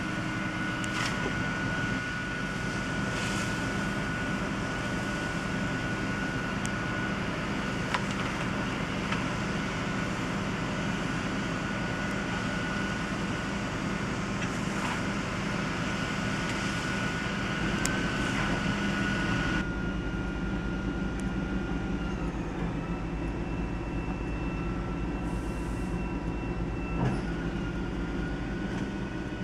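Rear-loader garbage truck running its packer cycle, sweeping and compacting yard waste out of the hopper. The engine hum is continuous, with a steady high whine and a few brief clicks and knocks.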